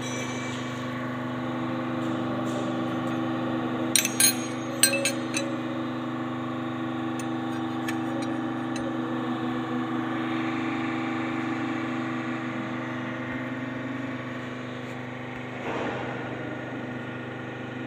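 Hydraulic bending machine's power pack, an electric motor and pump, running with a steady hum. Sharp metal clinks come about four to five seconds in, as the bent steel strip is handled on the die, and there is a brief surge near the end.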